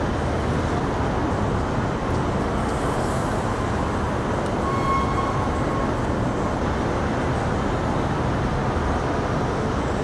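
Steady city street traffic noise, an even low rumble of passing vehicles, with a faint brief high tone about five seconds in.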